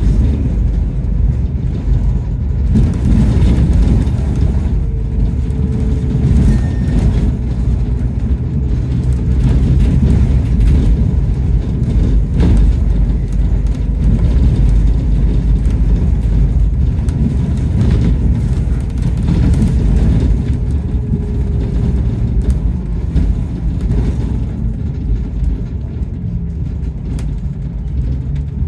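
Bus engine and road rumble heard from inside the upper deck of a moving double-decker bus, with an engine whine that rises and falls as it pulls along. There is a single knock about halfway through, and the noise eases off slightly near the end.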